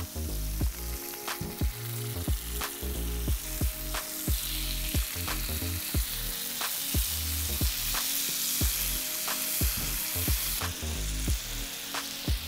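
Marinated chicken skewers sizzling on a hot, oiled steel flat-top griddle. The sizzle grows louder about four seconds in and eases off near the end.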